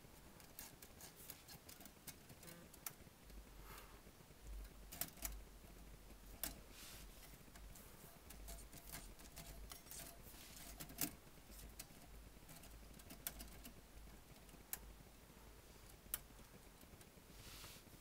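Royal manual typewriter's typebars and keys clicking and knocking lightly at irregular moments as a cat paws at them, with soft brushing in between; the sharpest knock comes about eleven seconds in.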